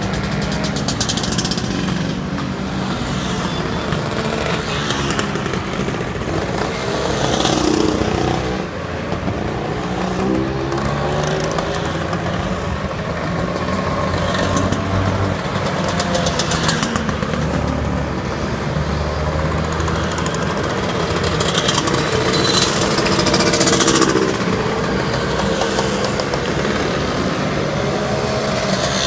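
A steady procession of motor scooters, Vespas and Lambrettas, riding past one after another, their small engines running and revving. A louder scooter passes close every few seconds.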